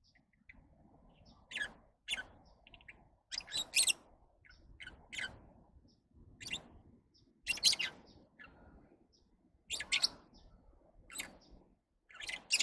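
Lovebirds chirping: a string of short, sharp, high calls, coming irregularly about once a second, some louder than others.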